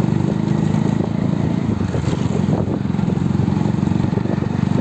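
Motorcycle engine running steadily while the bike is ridden at a constant pace.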